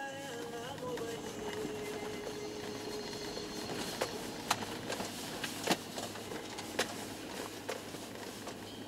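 Inside a Toyota Land Cruiser 120 on a dirt track: the engine and running gear give a steady low hum, with a steady tone that slides down slightly in pitch over the first two seconds. From about four seconds in come several sharp knocks.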